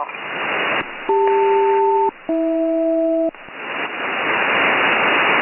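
Shortwave static on the 8918 kHz upper-sideband aviation channel, broken about a second in by a SELCAL call: two steady two-tone chords, each about a second long with a short gap between them. The call is the ground station's signal that rings an alert in one aircraft's cockpit.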